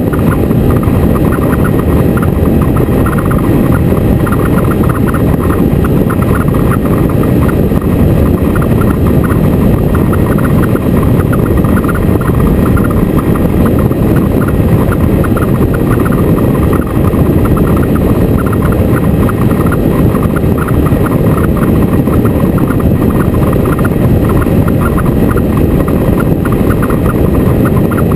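Motorcycle on the move at a steady pace: engine and road noise, loud and unbroken throughout.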